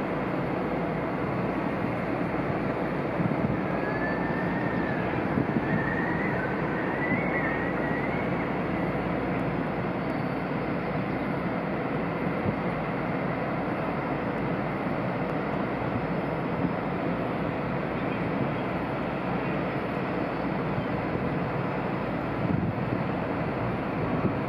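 Steady rumble of wind and ship machinery, with a few faint high chirps, rising and falling, about four to eight seconds in.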